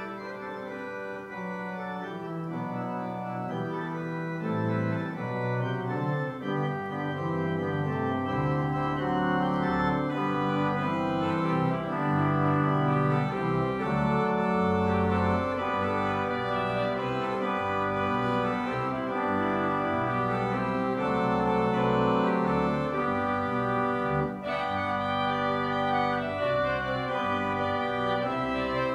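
Organ playing held chords. The bass enters about eight seconds in and the music grows louder.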